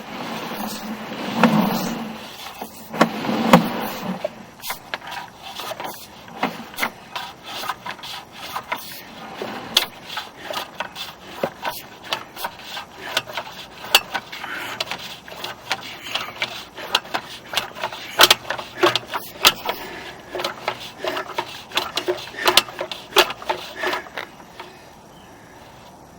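Sewer inspection camera's push cable being fed by hand into a cleanout: irregular clicks, knocks and scraping of the rod and reel, which stop about two seconds before the end.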